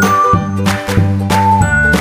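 Background music: a light, bright tune with a steady beat and tinkling notes.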